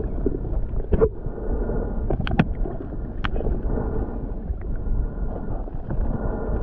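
Underwater sound picked up by a camera held below the lake surface: a steady, muffled rumble of moving water with a few sharp clicks, two of them close together a little past two seconds in.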